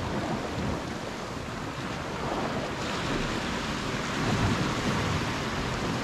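Sea washing against a rocky shore, with wind buffeting the microphone: a steady rushing noise with no distinct strikes.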